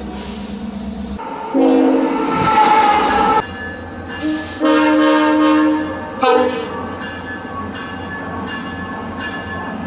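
Train air horn sounding a chord: a long blast, a brief one, another long blast and a short one, followed by the steady rumble of the train running past.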